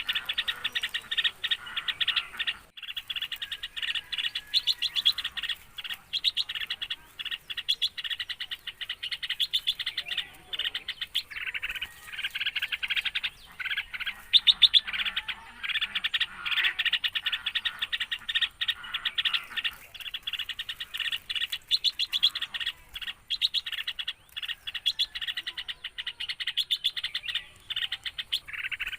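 Birds chirping in fast, dense runs of high calls lasting several seconds each, broken by short gaps.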